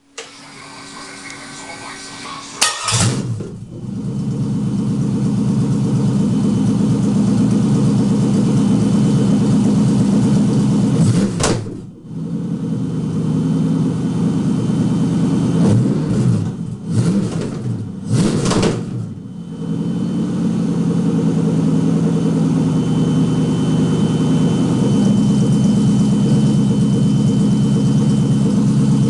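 LS-series V8 engine on a standalone wiring harness starting up about three seconds in and settling into a steady idle, with a quick rev near the middle and a few more throttle blips shortly after before it returns to idle.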